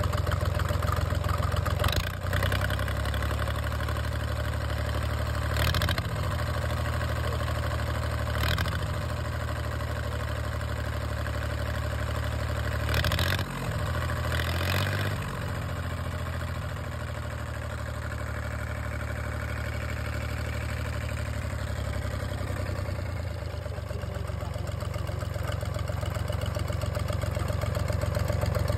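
Volvo Penta 2003 three-cylinder marine diesel running steadily at idle, with a few brief sharp sounds over it.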